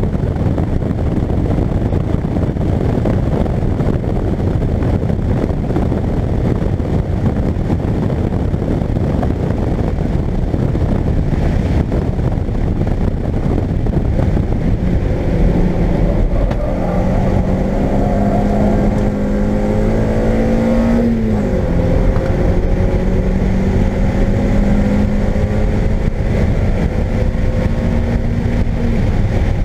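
Car engine and road and wind noise heard from inside the cabin of a car lapping a race track, hard on the throttle at high revs. About two-thirds of the way in, the engine note climbs, dips sharply as at a gear change, then climbs again.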